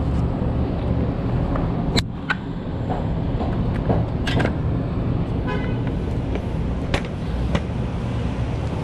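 Steady city street traffic rumble, with a handful of sharp clicks and knocks from handling bags and gear at a bike basket. About five and a half seconds in comes a brief high toot.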